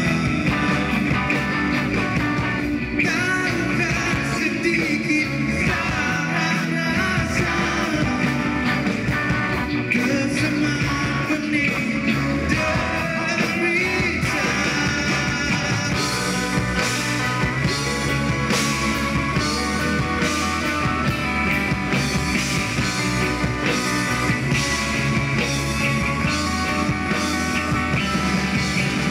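A live rock band playing a song, with electric guitars, keyboard and drums under a male lead vocal. The drums come in harder with steady cymbal strokes about halfway through.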